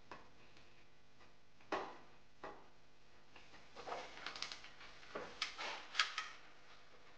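Faint, scattered light knocks of wood on wood as a wooden handle is fitted onto its uprights, then a run of quick irregular clicks from a corgi's claws on a wooden floor.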